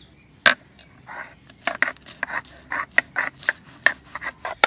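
Stone roller of a sil-batta grinding stone crushing garlic cloves on the stone slab. There is a sharp knock about half a second in, then a quick run of short scraping strokes, about four a second, as the garlic is ground to paste.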